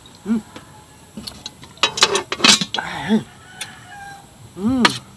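Chicken clucking: three short drawn-out clucks, the last the loudest. A short burst of crunching clicks comes about two seconds in.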